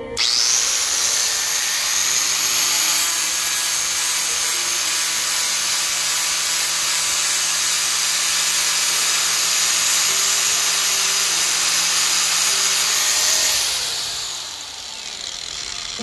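Electric angle grinder with a flap disc starting up at once and running with a steady high whine while a multitool's saw blade is held to the disc. About three seconds before the end it is switched off and winds down with a falling whine.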